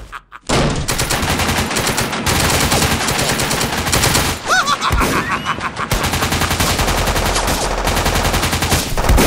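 Rapid automatic gunfire sound effects from several guns firing together in one continuous dense volley. It starts about half a second in, after a brief lull, with a short tone that rises and falls about halfway through.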